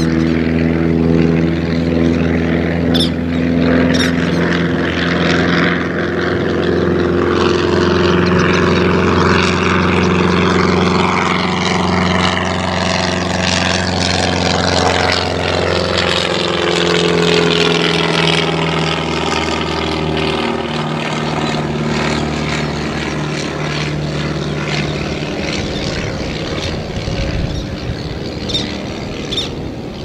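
Propeller aircraft flying over: a steady low engine drone with a whooshing tone above it that sweeps down and back up. The drone drops away near the end.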